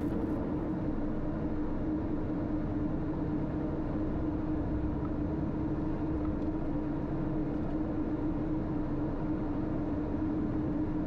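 Twin PT6 turboprop engines of a King Air 200 running steadily at taxi power, a constant drone with one held hum.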